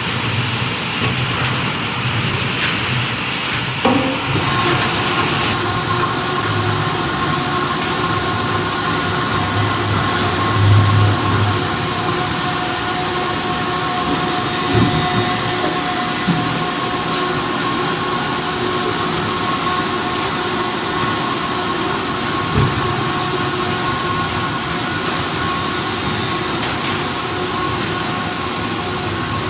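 Veneer peeling line machinery running steadily: a constant mechanical rumble with a steady motor whine and a few sharp knocks.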